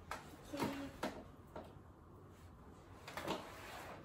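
A few soft rustles and light knocks of hands handling hair and a plastic hair roller, with a brief low hum about half a second in.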